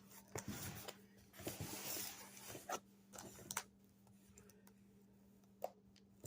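Faint rustling and light knocks from a package being handled, with one sharp click near the end.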